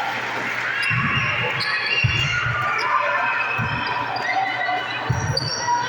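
Volleyballs thumping in a large gym hall, four dull echoing thumps a second or so apart, with a busy background of voices.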